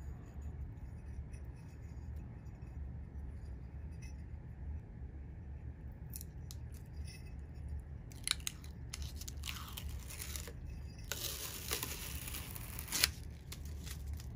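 Blue protective plastic film being peeled off an aluminum plate. It makes short tearing rips from about halfway through, then one longer rip of about two seconds near the end, over a steady low hum.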